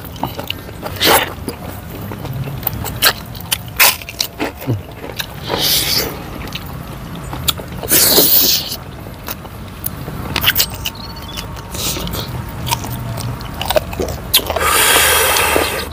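Close-miked eating of chicken in sauce with bare hands: wet chewing and repeated lip smacks, with a few longer sucking noises, the longest near the end.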